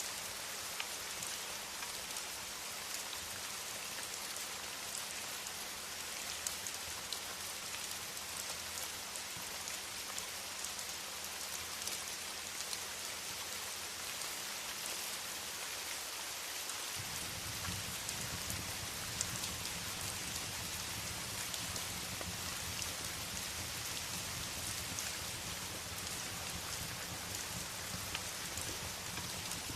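Steady rain falling, with scattered small ticks. A low rumble grows louder about halfway through.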